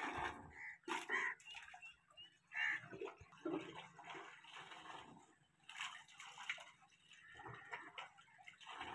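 Faint splashing of water pouring from a tube-well outlet pipe into a brick tank, broken up irregularly as hands are washed under the stream.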